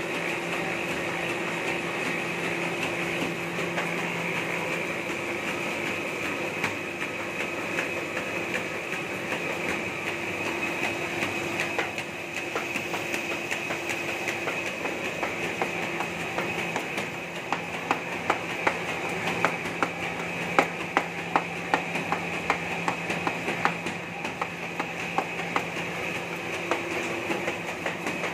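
Laminated sheet separator machine running: a steady mechanical hum and whir of motor and rollers, with sharp clacks that come thick about two-thirds of the way through.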